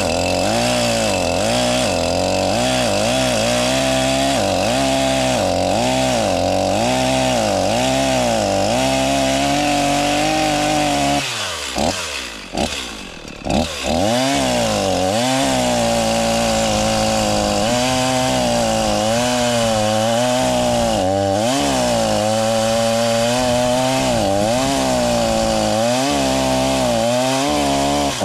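Chainsaw running at high revs while cutting into a tree trunk, its pitch dipping and rising as the chain loads up in the wood. About eleven seconds in the revs fall away briefly, then the saw opens up again and keeps cutting until it stops near the end.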